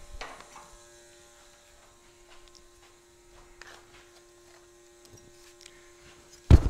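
Steady electrical hum of a Lincoln Electric MIG welder that has just been switched on, ending in a loud knock near the end.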